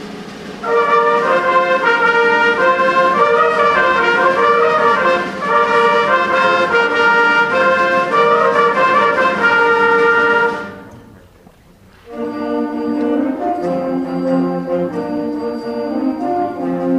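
Middle school symphonic band playing a concert-band piece, brass to the fore. A loud full-band passage of held chords breaks off about ten seconds in. After a brief pause the band comes back in more quietly over low held notes.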